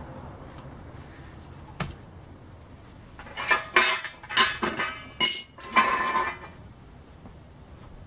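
Metal tools clinking and scraping against a sheet-steel tray, a cluster of ringing metallic clanks from about three to six and a half seconds in, after a single light knock about two seconds in.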